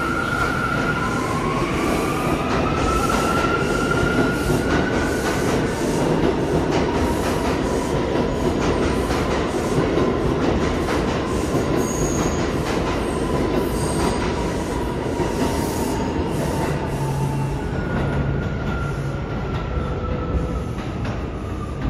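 New York City subway train running through the station, its wheels rumbling and clacking over the rail joints with some wheel squeal. A motor whine rises in pitch over the first few seconds and falls again near the end.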